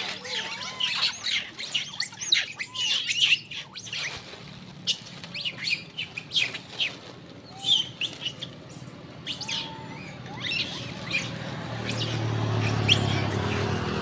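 Young long-tailed macaques giving many short, high-pitched squeaky chirps, thick in the first few seconds and sparser after: the calls of small monkeys kept back from the food by the big dominant ones. A low rumble builds up near the end.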